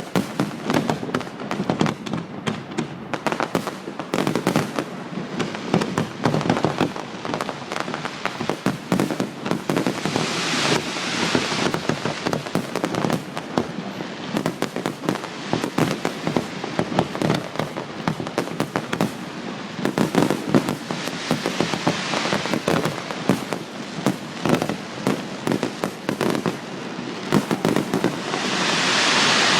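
A fireworks display: a dense, rapid barrage of bangs and crackles with no let-up. A broad rushing hiss swells up near the end.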